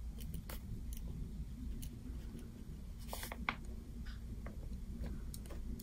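Stalogy low-viscosity oil-based 0.7 mm ballpoint pen writing on notebook paper: faint, short scratching strokes of handwriting, a little sharper about three seconds in.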